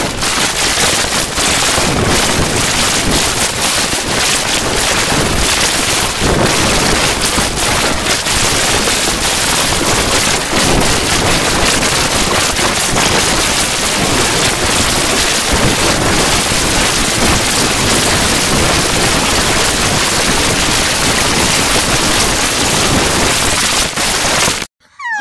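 Loud, continuous harsh static noise like heavy rain: the cartoon clip's soundtrack buried in noise by a heavy audio effect. It cuts out abruptly near the end.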